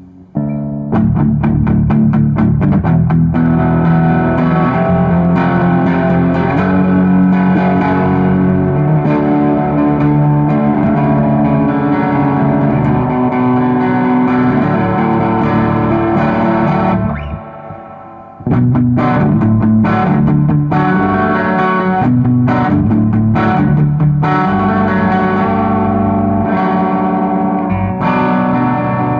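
Gibson SG electric guitar through a Timmy-style overdrive pedal, gain turned up for a crunch tone, into a 1973 Fender Super Reverb amp, played continuously with a pause of about a second two-thirds of the way through.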